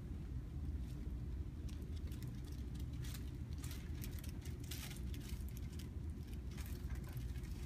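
Soft rustling and scattered light clicks, like handling and movement on a treatment table, over a steady low hum.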